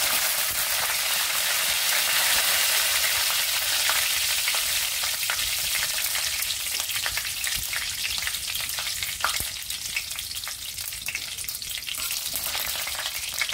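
Whole spices (cloves, cinnamon, cardamom, dried red chillies and bay leaf) sizzling in hot oil in a stainless steel kadai. The sizzle is loudest at first and slowly dies down, with scattered crackles and a metal spoon stirring the pan near the end.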